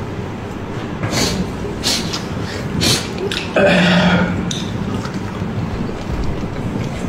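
A loud, deep burp lasting under a second, about halfway through, over a steady noisy background with a few short sharp smacks before it.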